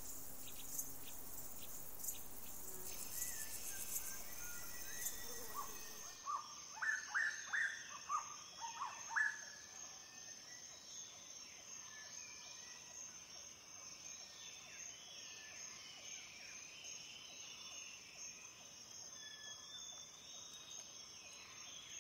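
Insect buzzing for the first few seconds, then a quick run of rising chirps and, after that, scattered faint bird calls over a steady high insect drone.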